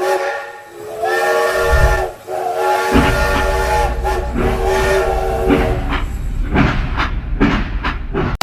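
Train horn sounding in several long held blasts of a multi-note chord. A low rumble of the train running joins about three seconds in, with clattering later on.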